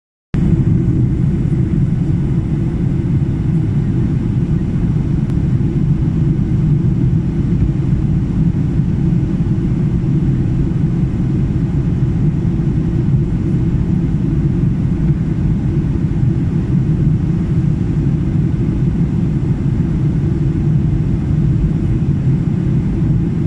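Steady low drone of a turbofan jet airliner in flight, heard from inside the passenger cabin: engine and airflow noise with no change in pitch or level.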